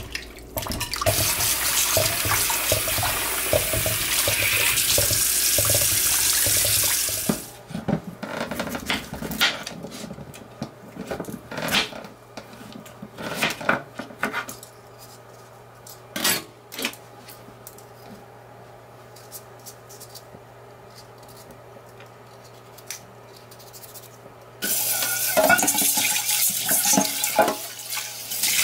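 Kitchen tap running hard into a stainless steel sink while raw chicken is washed in a glass bowl; the water stops abruptly about seven seconds in. Then a kitchen knife cuts through pumpkin on a wooden chopping board, making scattered knocks over a low steady hum. Near the end the tap runs again, splashing into a pot being rinsed and filled.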